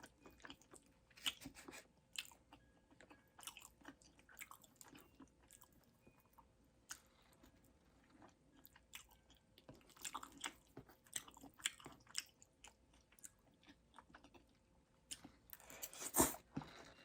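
A person chewing food close to the microphone: quiet, irregular mouth clicks, with a louder cluster of them near the end.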